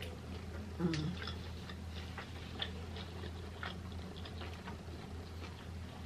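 Close-miked chewing of a mouthful of burger: soft wet mouth clicks and smacks scattered through, with a brief closed-mouth 'mm' about a second in.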